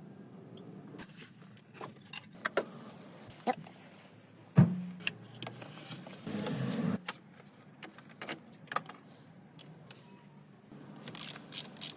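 Hand tools and metal engine parts being handled: scattered clicks and knocks, with one sharp knock about four and a half seconds in and a short scraping rustle between about six and seven seconds.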